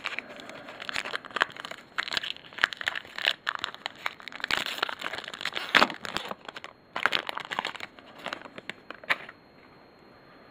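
Foil baseball card pack wrapper crinkling and tearing as it is pulled open by hand, in quick irregular crackles that stop about a second before the end.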